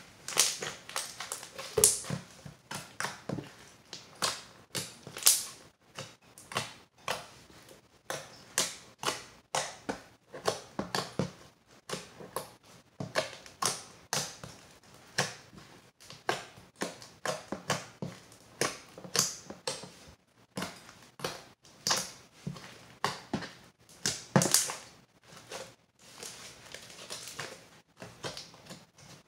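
Freshly made homemade slime being squished, poked and stretched by hand for ASMR, giving an irregular run of sharp sticky clicks and pops.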